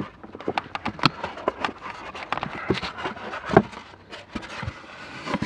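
Irregular clicks, knocks and scrapes as a polystyrene cover piece is handled and pushed into place over a car's blower motor housing, with a sharper knock about three and a half seconds in.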